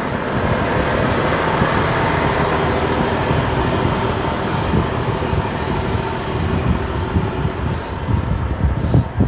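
Cat 160M motor grader running steadily under load as its blade and benching wing cut through a snow drift: a continuous engine drone with a rushing noise over it.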